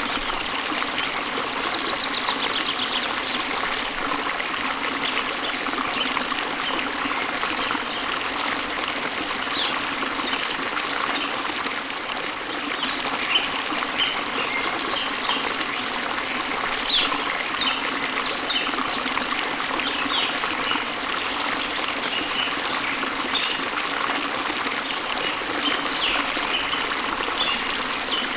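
Running water of a waterfall, a steady rushing splash. Small birds chirp in short, high calls from about a third of the way in.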